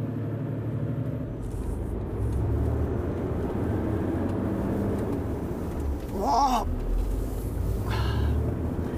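Loaded truck's diesel engine at full throttle, labouring up a steep mountain grade at about 25 km/h: a steady low drone heard inside the cab. A person's brief voice sound comes twice in the second half.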